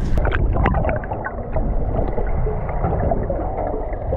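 Muffled underwater sound picked up through a camera housing: a steady low wash of water with scattered clicks and gurgles, all the higher sound cut off.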